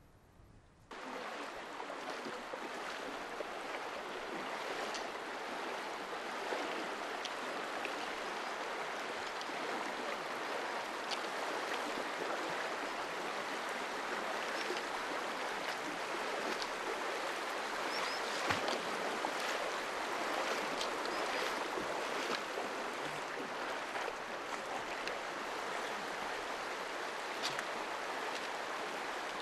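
Shallow mountain river at low water, rushing steadily over a stony bed; the sound starts suddenly about a second in.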